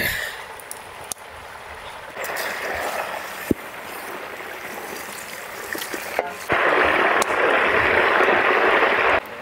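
Bananas deep-frying in hot oil in a large iron kadai: a steady sizzle that swells for about a second after two seconds in, then grows loud from about six and a half seconds and cuts off suddenly near the end.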